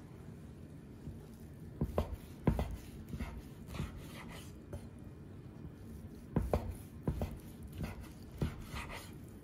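Chef's knife slicing through a cooked sirloin steak, knocking on the wooden cutting board at the end of the cuts: a few sharp knocks with soft scraping between.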